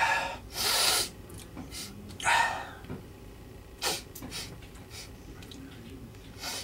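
A man sniffing and breathing hard through his nose in several short hissing bursts, the loudest two in the first second, in reaction to a large pinch of mentholated nasal snuff.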